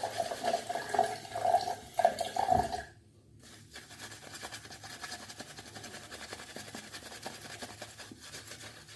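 Water running from a tap for about three seconds, adding water to the lather, then stopping abruptly. After that comes a faint, fine crackling.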